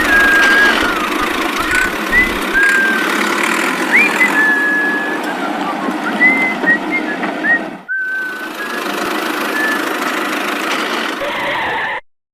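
Cartoon vehicle engine sound effect running steadily, overlaid with a string of short whistle-like tones that jump up quickly and then hold briefly. It cuts out for a moment about eight seconds in, then carries on.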